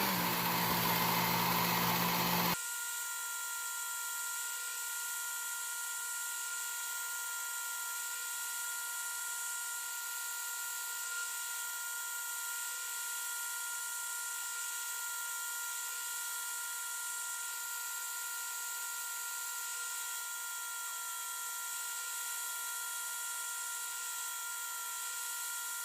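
Work Sharp electric belt sharpener running steadily with its 12,000-grit belt, giving an even motor whine while a knife edge is honed with very light pressure. About two and a half seconds in, the sound drops in level and its low hum falls away, leaving the steady whine.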